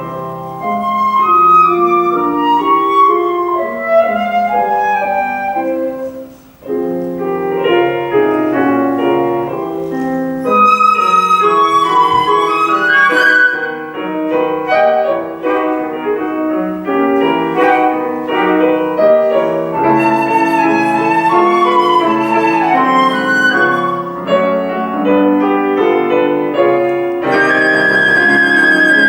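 Concert flute with piano accompaniment playing a fast classical piece in quick runs of notes. There is a brief break about six seconds in, and the flute holds a long high note near the end.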